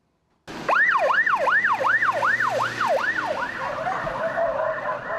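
Animal-rescue ambulance van's siren wailing in quick, repeated rising-and-falling sweeps, about two and a half a second, starting about half a second in. In the second half the sweeps blur together.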